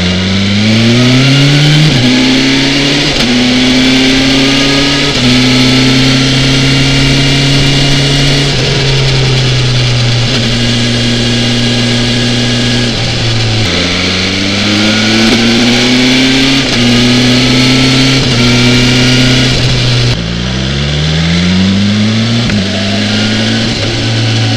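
BMW S1000XR's inline-four engine accelerating up through the gears, its pitch climbing and dropping back at each upshift, then holding steady at a cruise. It pulls hard up through the gears twice more, about 14 seconds in and again about 20 seconds in.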